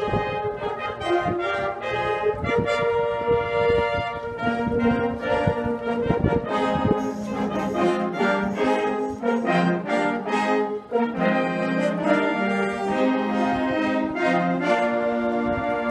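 Marching band brass playing held chords and a moving melody, with trumpets, trombones and horns together. Low thumps sound under the first half.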